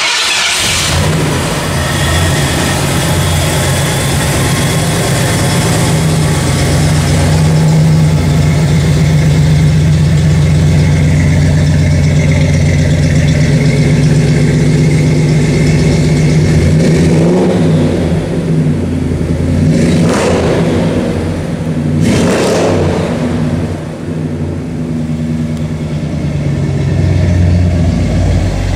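The truck's 5.0-litre fuel-injected, supercharged Ford V8 starts and settles into a steady idle. About twenty seconds in it is revved twice in quick succession, then drops back to idle.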